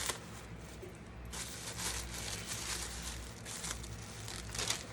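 Wig packaging crinkling and rustling in irregular bursts as the wig is unwrapped, with a sharper crackle near the end.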